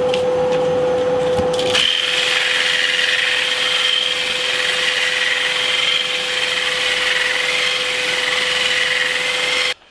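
Cordless drill running at a steady pitch, spinning a square-section ash stick while 60-grit sandpaper held against it sands it round into an 8 mm dowel. The hiss of the sanding joins the motor about two seconds in, and both stop suddenly near the end.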